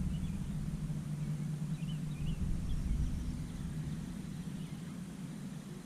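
A steady low engine hum that slowly fades, with a few faint bird chirps.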